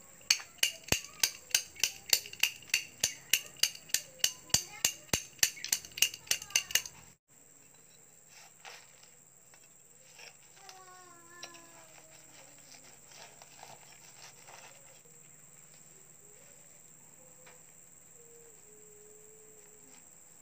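Steel adjustable wrench hammering the side of a cast cement stove body, knocking out an opening: sharp ringing blows about four a second that stop suddenly after about seven seconds, followed by a few faint small knocks.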